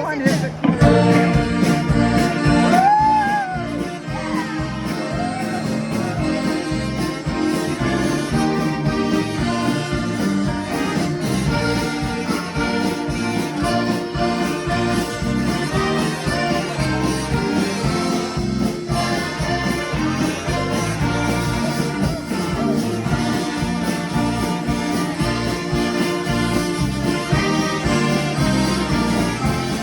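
Band music led by an accordion, playing a song at a steady beat; it starts abruptly at the opening.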